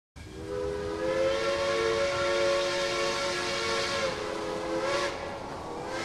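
Steam locomotive whistle blowing a long held chord of several tones over a hiss; the pitch wavers and sags about five seconds in, then steadies again.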